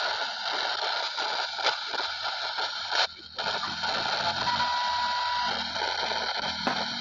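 Portable three-band radio's speaker hissing with static as the tuning knob is turned between stations, with crackles, a brief dropout about three seconds in, and a short steady whistle about a second later.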